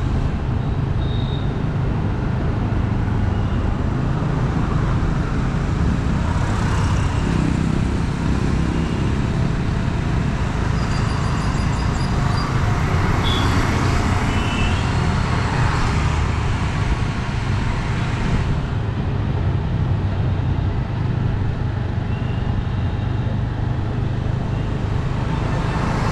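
Steady low engine and road rumble of driving through busy city traffic. The traffic noise is fuller with passing vehicles through the middle and eases a little after about two-thirds of the way. A few short high beeps are scattered through.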